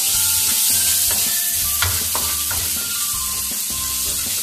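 Sliced spring onion whites sizzling in a little oil in a metal karahi, stirred with a wooden spoon that scrapes against the pan, with a sharper knock of the spoon near the middle.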